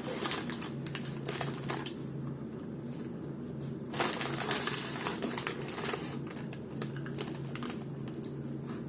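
Paper food packaging being handled, crinkling and rustling in short, irregular clicks, over a faint steady low hum.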